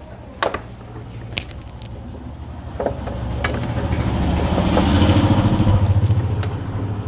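A sharp click about half a second in, then a few lighter handling clicks, over a motor vehicle engine running with a low pulsing drone that swells louder toward the middle.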